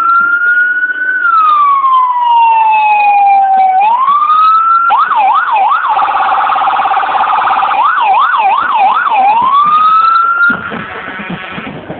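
Electronic emergency-vehicle siren sounding very loud and close. It runs a slow rising and falling wail, switches about five seconds in to a fast yelp with a rapid pulsing buzz in the middle, then rises back into the wail and cuts off near the end.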